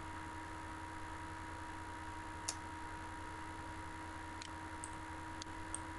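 A few sharp computer mouse clicks, one about halfway through and several more near the end, over a steady electrical hum and hiss.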